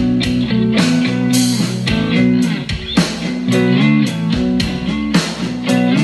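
Guitar-led band music with a steady beat, played back through a pair of homemade three-way bass-reflex speakers.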